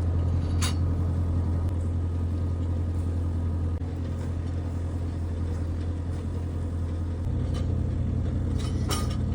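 A vehicle engine running steadily with a low drone that shifts slightly in pitch about seven seconds in, with a sharp click near the start and another near the end.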